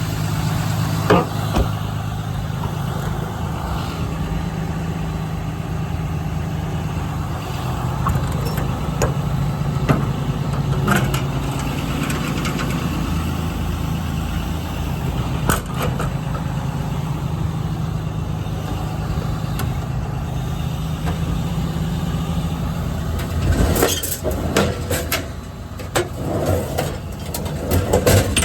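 6.7-litre Cummins inline-six turbodiesel of a Ram 5500 idling steadily, with a few scattered clicks and a cluster of knocks near the end.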